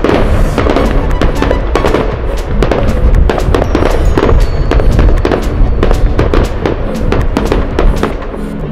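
Fireworks going off in a rapid, irregular string of bangs and crackles, mixed with background music that has held tones.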